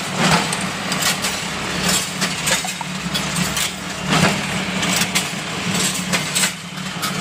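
Paper-core tube rolling machine running, with a steady low hum and sharp knocks about once a second at uneven spacing.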